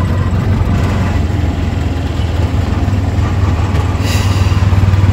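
Auto-rickshaw engine running steadily with a low drone, heard from inside the open passenger cabin as it drives along, with a brief hiss about four seconds in.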